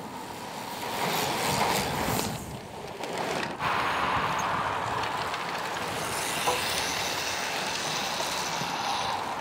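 Cyclocross bicycles riding over a grass and dirt course, a steady noisy rush that changes abruptly twice, about two and three and a half seconds in.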